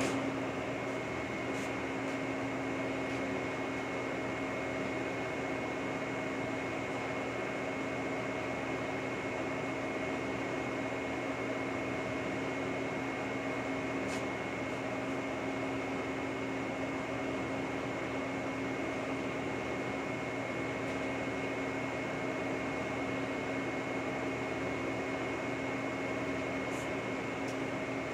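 Portable line-boring machine running a cut through an excavator quick-attach pin bore: a steady motor hum with a constant high whine, unchanged throughout.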